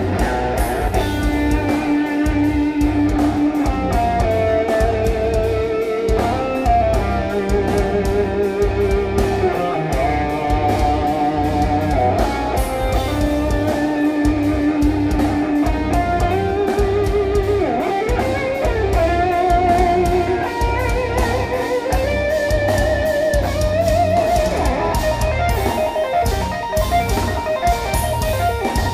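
Live instrumental progressive metal band playing loud: an electric guitar plays a melodic lead of held notes with wide vibrato over dense drums and low guitar and bass.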